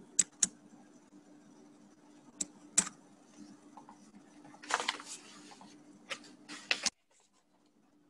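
Scattered sharp clicks and a few short rustling noises from someone working a computer, over a faint steady hum, picked up by a webinar microphone; the sound cuts out to dead silence near the end.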